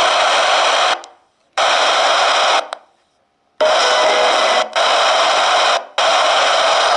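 Mini loudspeaker of a miniature toy car's sound system playing a harsh, static-like sound during a sound test. It comes in five bursts of about a second each, with short gaps between them.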